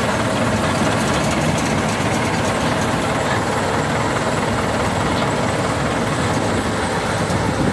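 Sugarcane harvester and the tractor hauling the cane wagon beside it, working through standing cane: a steady, heavy diesel engine drone mixed with an even machinery rush.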